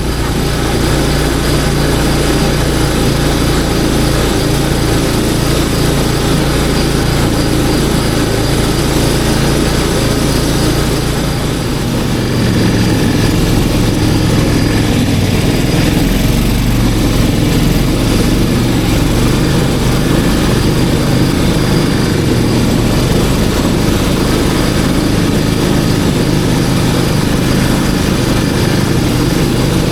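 Snowmobile engine running steadily while under way, getting a little louder with a change in engine pitch about twelve seconds in.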